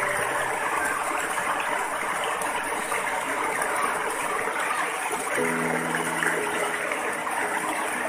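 Small waterfall cascading over rock ledges into a pool: a steady rush and splash of falling water. Soft sustained music notes come in over it about five seconds in.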